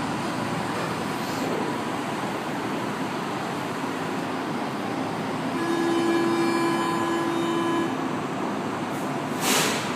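Metro train and station noise: a steady rumble throughout. Midway, a single pitched tone with overtones holds for about two seconds, like a horn or warning signal. Near the end comes a short, sharp hiss.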